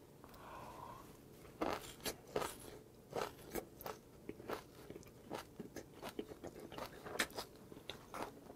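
Close-miked chewing of a mouthful of grilled pork belly, pen shell scallop and aged kimchi: wet mouth sounds with many short, irregular crunches.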